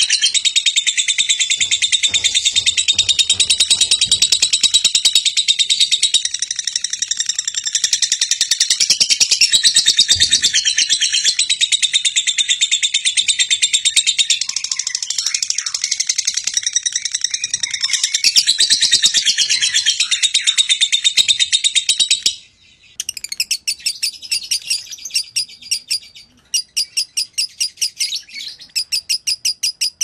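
Lovebird singing a long, unbroken, rapid chatter, the 'konslet' style of sustained 'gacor' song. About two-thirds of the way in it cuts abruptly to short rapid trills repeated with brief gaps.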